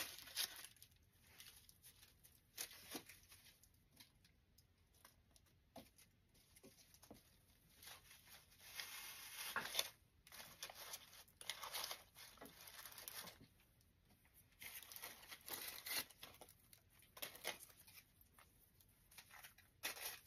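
Faint, irregular rustling and crinkling of artificial flower stems and leaves as they are bent and worked into a grapevine wreath, with a few small clicks.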